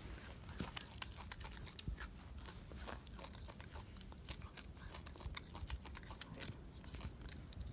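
A golden monkey eating: irregular small clicks and crunches of chewing and biting.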